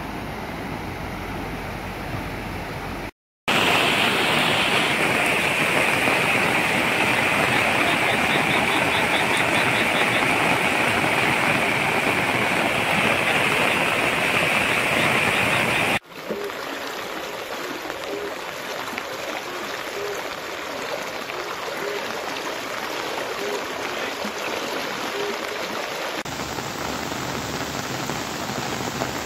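Muddy floodwater rushing in a steady roar. About 3 s in there is a brief dropout, then a louder rush until a sudden cut about 16 s in, after which a quieter, even rain-and-flowing-water hiss runs on.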